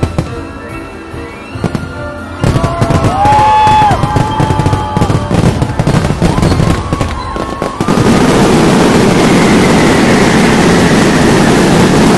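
Fireworks finale: scattered bangs over music, then about two seconds in a loud, rapid barrage of bangs with falling whistles, turning into a dense, continuous crackle near the end.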